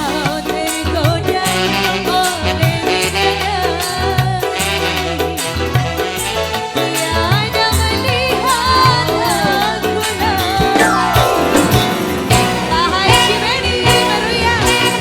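Band music with drums, bass and a gliding melodic lead, with some singing. A falling sweep comes in near the end.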